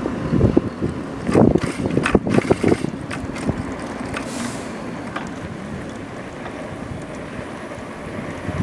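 Wind buffeting the microphone of a moving electric bike, over a steady rush of road noise. The gusts and a few short knocks are strongest in the first three seconds, then it settles to a steady rush.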